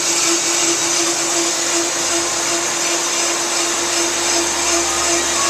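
On-car brake lathe running steadily, turning and cutting a brake rotor: a steady hum over a constant hiss. The operator calls it quiet, though the cut has chatter that he can feel.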